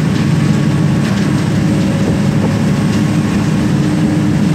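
Boat engine running steadily, a loud low drone with a constant hum.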